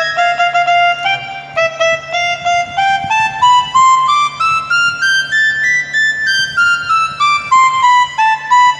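Casio electronic keyboard playing a flute-like voice: a quick run of short notes climbing up the scale and turning back down near the end, as the scale is checked on the repaired keyboard. A steady low hum runs underneath.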